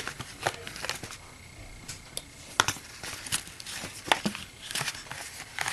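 Hands handling a small case and its packaging: soft rustling with about six sharp clicks and taps spread through.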